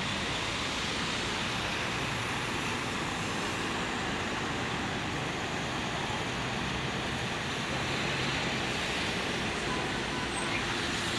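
Steady road traffic noise, with the low hum of idling engines under an even hiss.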